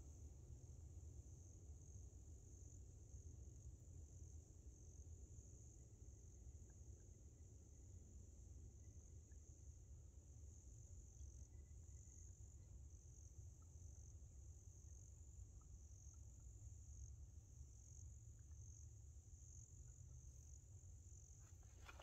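Near silence with a faint, steady high-pitched insect trill and a few faint bird chirps.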